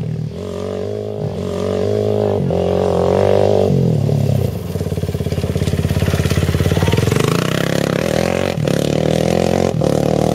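Off-road motorcycle engine running close by, its pitch changing in steps over the first few seconds as the throttle and gears change, then settling into a pulsing throb.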